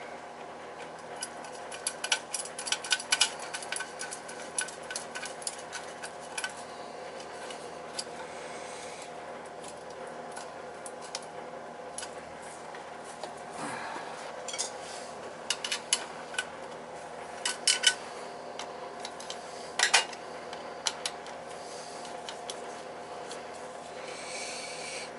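Hand tools and wires clinking and scraping against a boiler control's metal housing in scattered bursts of sharp clicks, over a steady hum.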